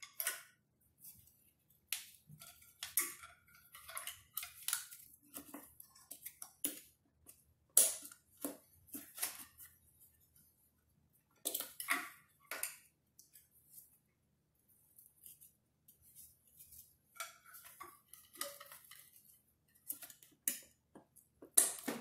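Ingenuity Baby Base 2-in-1 booster seat's nylon straps being pulled through their plastic buckles and dragged against the wooden chair as they are tightened: irregular short rasps and clicks, with pauses of a second or two.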